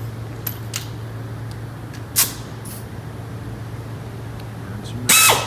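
Tire-shop work sounds over a steady low hum: a couple of light clicks, a short hiss about two seconds in, then near the end two brief loud bursts of a power tool spinning up and winding down.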